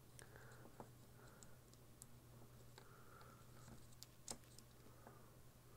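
Faint small clicks and scratching as a wire is tucked behind the metal spring contact of a plastic battery holder, with one sharper click about four seconds in, over a low steady hum.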